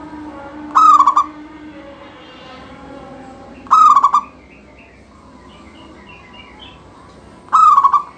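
Zebra dove (perkutut) cooing: three short, loud, stuttering coos about three seconds apart, each under half a second long. Faint chirps of other small birds come between them.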